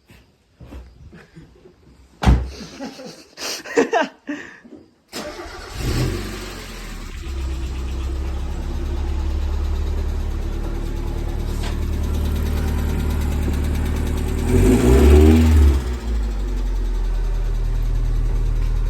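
A few knocks and clicks, then the Mazda Miata's four-cylinder engine starts about five seconds in and idles steadily, with one short rev near three-quarters of the way through. It is being run to test a makeshift gasket-sealant fix on an exhaust leak at the catalytic converter, which the owner judges has not sealed it.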